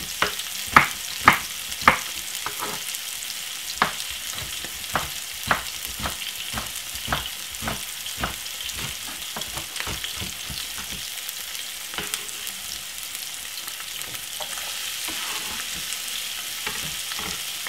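Tomato and spring onion sizzling in oil in a frying pan, with a kitchen knife chopping an onion on a wooden cutting board: a run of sharp knocks, loudest in the first two seconds, thinning out by about twelve seconds in. Near the end the sizzle grows a little as the chopped onion goes into the pan.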